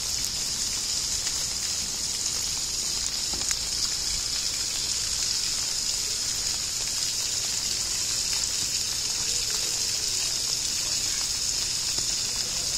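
Steady rush of running water with no change throughout, and one or two faint knocks about three and a half seconds in.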